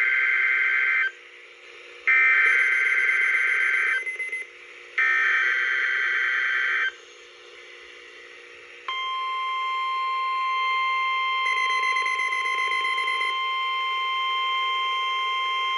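NOAA Weather Radio Required Weekly Test coming through a Midland 74-200 weather radio's speaker: three bursts of warbling SAME data tones (the station's digital test header), the first already under way, then after a two-second gap a steady 1050 Hz warning alarm tone that starts about nine seconds in. A second, higher tone briefly joins it about twelve seconds in.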